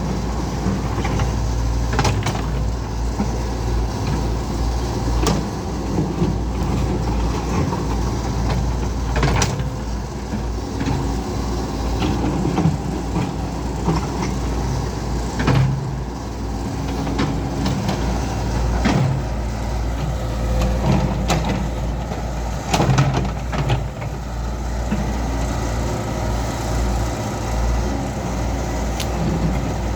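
Caterpillar excavator's diesel engine running steadily as it digs, with sharp knocks and clanks every few seconds.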